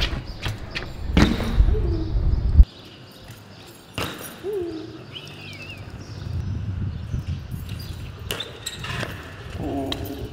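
BMX bike being ridden: sharp knocks and clacks of the bike hitting the ground, over a low wind rumble on the microphone that stops abruptly about two and a half seconds in.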